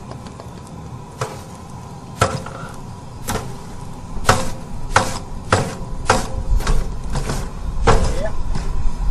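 A run of sharp, ringing metal knocks and clanks from a wheelbarrow and hand tools as extra asphalt material is tipped onto a heated patch. The knocks come a few at a time at first, then about two a second from about four seconds in. A low engine rumble builds underneath.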